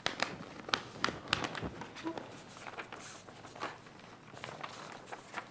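Faint scattered clicks and rustles of a sheet of paper being handled and unfolded, in a quiet small room.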